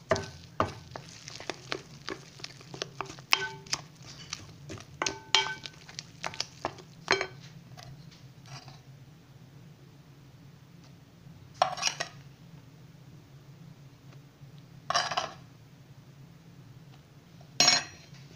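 A hand working soft, sticky yeast dough in a glass bowl as flour is mixed in: a quick run of small clicks, squelches and knocks against the bowl for the first seven seconds or so. Then three louder single slaps about three seconds apart near the end.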